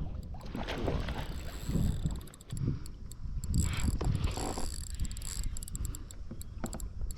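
Fishing reel clicking in quick, uneven runs while a hooked striped bass is fought and reeled in, with low rumbling of handling and water underneath.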